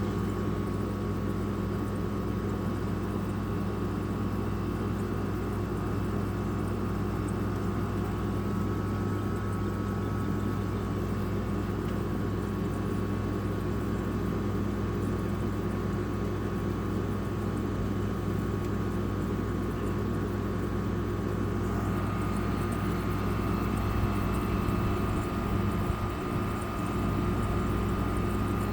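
Haier 5,050 BTU window air conditioner running steadily, its compressor and fan making a constant low hum with a thin steady whine above it, while it is cooling and blowing cold air.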